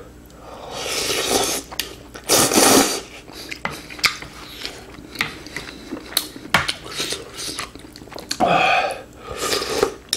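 Close-miked eating of ramen: noodles slurped in several short noisy rushes, with chewing and small sharp clicks between them.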